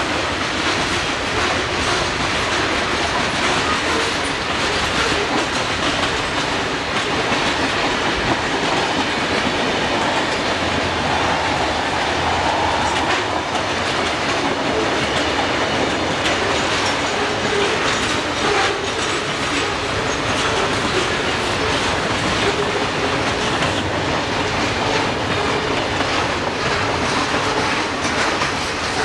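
Freight train cars rolling steadily past at close range, their wheels clicking rhythmically over rail joints.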